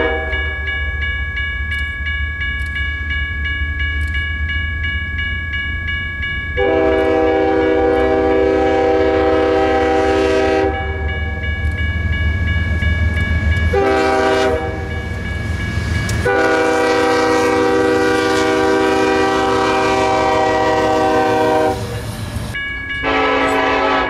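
BNSF diesel freight locomotive's multi-chime air horn sounding for a grade crossing. One blast ends just at the start, then come a long blast, a short one and another long one, and a further blast begins near the end. The locomotives' low engine rumble runs underneath.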